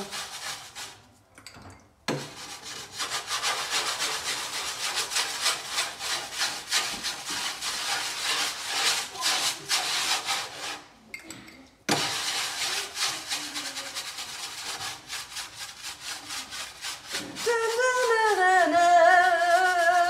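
A homemade dishwasher tablet is rubbed rapidly back and forth over greasy oven-door glass, a dense scrubbing that stops briefly twice. A woman's voice joins in near the end.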